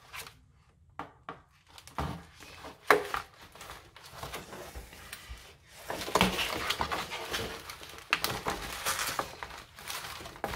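Scissors snipping and plastic packaging crinkling and rustling as a doll is cut and pulled free of its box insert. Scattered sharp clicks at first, then a denser, louder stretch of crinkling from about six seconds in.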